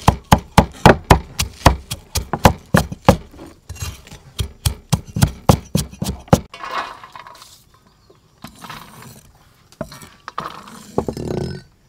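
Cleaver chopping shallots on a thick wooden chopping block, sharp even strokes at about four a second that stop abruptly about six seconds in, followed by a few softer scattered sounds.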